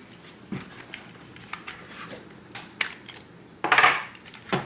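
Handling noise from an airsoft M4 rifle being worked on by hand: scattered light clicks and knocks, then a louder rattling scrape of under half a second about three and a half seconds in, and a sharp knock near the end.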